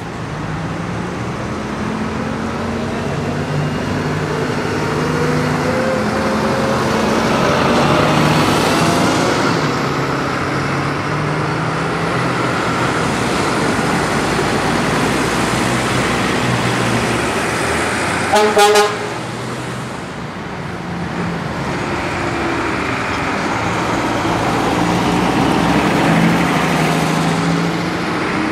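Vintage diesel buses driving past one after another, their engines running steadily, one engine note rising as it pulls away. About two-thirds of the way through, a bus horn gives a short double toot.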